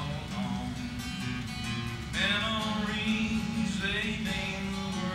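A man singing to his own strummed acoustic guitar, with sung phrases about two seconds in and again near four seconds.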